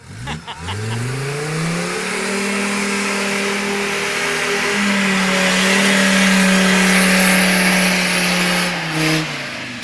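Mercedes-Benz G-Class engine revving hard as the four-wheel-drive climbs out of a deep muddy rut. The revs rise quickly over the first couple of seconds and are held high and steady, then drop away near the end.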